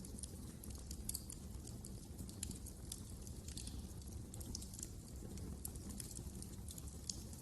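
Wood fire crackling in a fireplace: frequent, irregular small snaps and pops over a low, steady rumble of burning.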